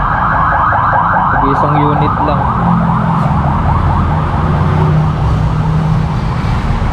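A siren wailing in a fast yelp, its pitch sweeping up and down several times a second, fading after about four seconds, over a low steady rumble.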